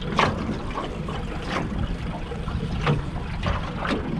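Small waves slapping against the aluminium hull of a small fishing tinny, several short sharp slaps over a steady low rumble.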